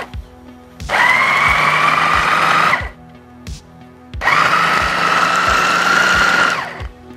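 Electric food chopper mincing raw beef with spices into kebab paste, run in two pulses of about two seconds each, its whine rising slightly as the blades spin up.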